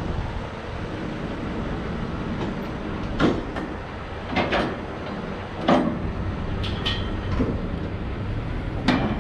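An engine running steadily, with sharp metal clanks every second or so, typical of unloading a tractor from a trailer.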